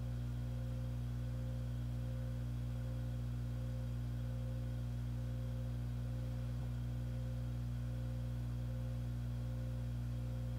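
Background music: a steady, sustained low chord that holds unchanged.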